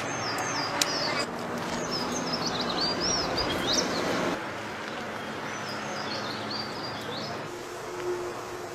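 Small birds chirping in quick rising and falling notes, in two spells, over a steady outdoor noise. A steady low hum comes in near the end.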